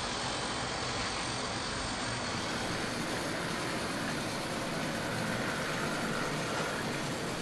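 HO-scale model steam locomotive and its train running along the track: a steady, even rushing noise with no clear beat.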